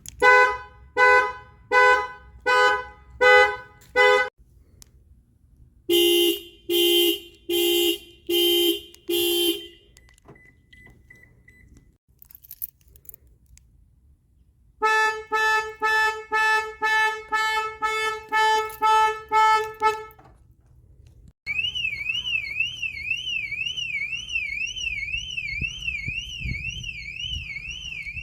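Car alarm sirens sounding one pattern after another. First comes a run of about seven pulsed beeps, then about five slower, lower honks roughly a second apart. After a pause there is rapid beeping about two a second, and from about three-quarters of the way in a steady warbling wail that rises and falls about twice a second.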